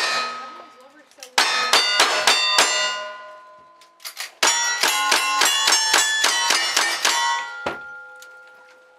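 Two rapid strings of gunshots on steel plate targets, each hit clanging and ringing, with a pause of about a second and a half between the strings. A single low thump follows, and the steel's ring dies away near the end.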